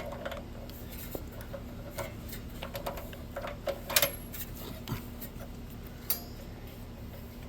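Small metallic clicks and clinks of a spark plug and plug wrench being fiddled into the plug hole of a small single-cylinder engine's head, scattered and irregular, with the sharpest clinks about four seconds in and again near six.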